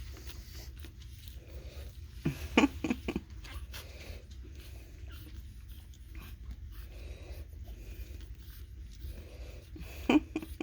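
Four-week-old pug puppies snuffling and mouthing, with soft grunts and a few sharp clicks about two to three seconds in, over a low steady hum.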